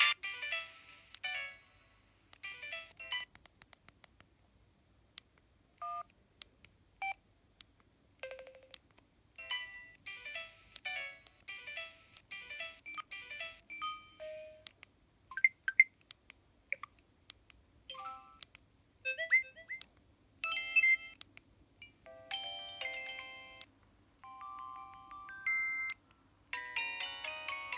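Samsung SGH-E900 mobile phone playing its built-in alert tones one after another: a series of short electronic melodies and chimes, each lasting from a blip to a few seconds, separated by brief pauses, with a longer tune starting near the end.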